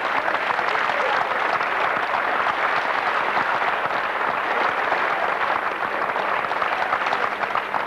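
Large crowd applauding steadily, a dense crackle of many hands clapping, easing off slightly near the end.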